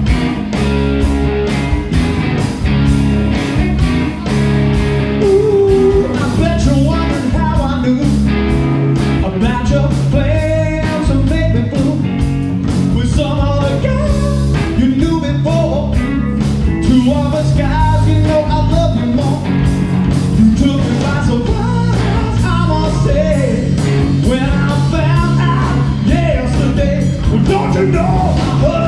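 Live rock band playing through amplifiers: distorted electric guitars and drums, with a singer's voice over them from about six seconds in.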